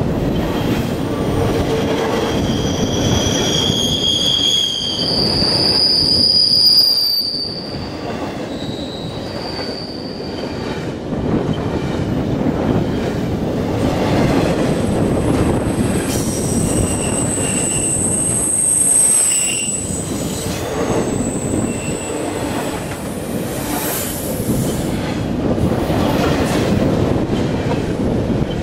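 Freight train passing at speed close by, double-stack intermodal well cars then other freight cars: a loud, steady rumble of steel wheels on rail. High-pitched wheel squeals come on a second or so in and again past the middle.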